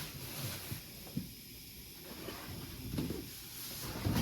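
Faint handling sounds of a cardboard box and its packing material being moved: a few soft, scattered knocks and rustles.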